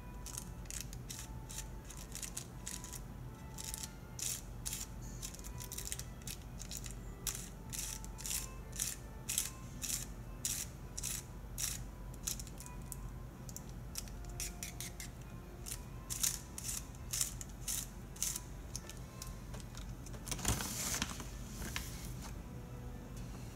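Thin cigarette-paper tube crinkling and crackling as fingers work it, short dry clicks several times a second, with a longer rustling scrape near the end.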